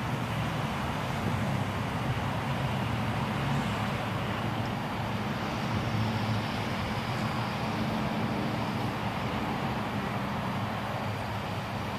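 Steady traffic noise, with a low engine hum underneath.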